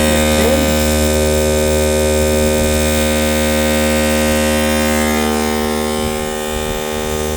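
Onboard electric air compressor running off an inverter for the baler's airbag tensioners, a steady hum.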